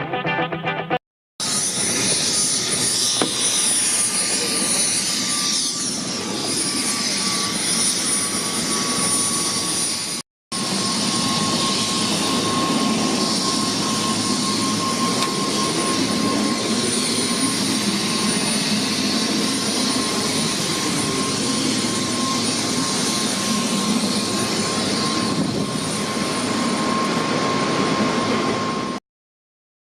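Helicopter in flight: a loud, steady rush of engine and rotor noise with a thin, steady high whine, breaking off briefly about a second in and again about ten seconds in.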